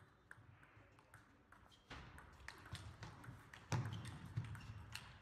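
Table tennis balls clicking off bats and the table. The clicks are sparse at first, then become a rally of quick hits and bounces from about two seconds in, with one heavier knock a little past halfway.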